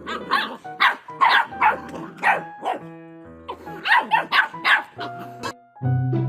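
A dog barking again and again in quick runs, about a dozen barks, over background music; the barking stops near the end and only the music plays on.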